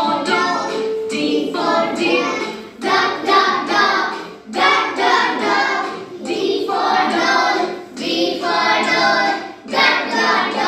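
Music with a child's voice singing, in short phrases with brief pauses between them.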